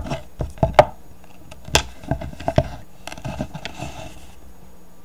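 Sharp clacks and taps of small hard objects being set down and moved on a hard surface, several in quick succession over the first couple of seconds, then a soft rustle of handling.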